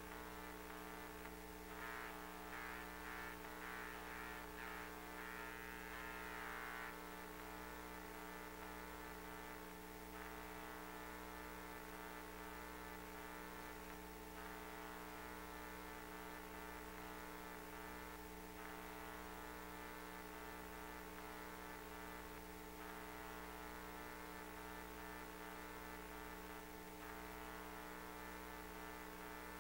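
Faint, steady electrical hum of pipe-inspection camera equipment, made of several fixed tones, with a slightly louder whir over the first several seconds.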